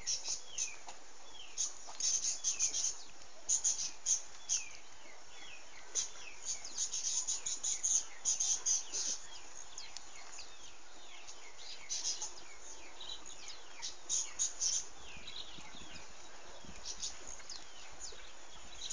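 Small birds chirping: many short, quickly falling chirps in scattered clusters, busiest in the first half and thinning out towards the end.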